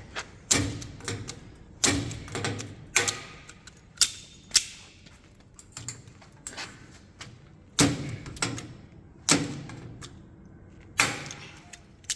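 Lazy-tong pop rivet gun setting rivets: a series of sharp metallic snaps and clacks at irregular intervals, some with a short ring.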